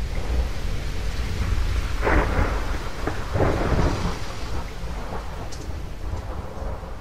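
Thunder rumbling over steady rain, with two sharper crackles of thunder about two and three and a half seconds in. The storm fades out toward the end.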